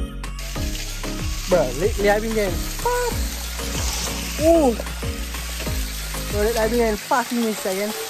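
Steady rushing hiss of a small waterfall, with a beat's deep sliding bass underneath until about seven seconds in and a few short sung vocal phrases over it.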